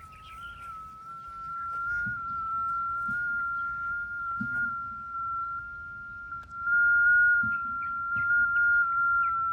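Cable locator receiver (S5000 cable tracer) sounding its steady high-pitched signal tone while following the buried cable's route. The tone gets louder about two seconds in and louder again near seven seconds.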